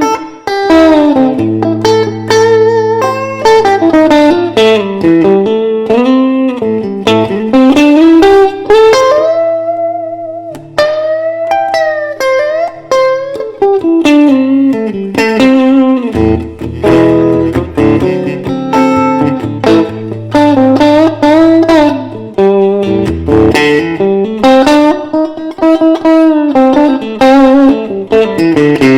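Electric guitar, a Fender Stratocaster, playing a blues lead solo of single notes with many string bends, over steady sustained low notes.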